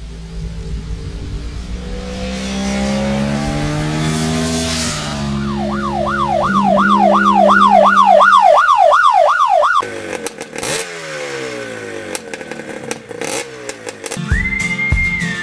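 Motorcycle engine sound effect revving, its pitch stepping up and down. About five seconds in a loud warbling siren-like tone joins it, sweeping up and down two or three times a second, and it cuts off suddenly about ten seconds in. A spell of clicks and falling sweeps follows, then a steady high beep near the end.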